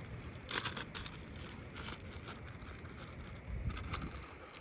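Footsteps across a shingle roof with wind on the microphone: a few short scuffs and a heavier low thump near the end.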